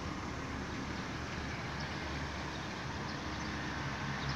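Steady hum of distant road traffic, an even background noise with a faint low drone.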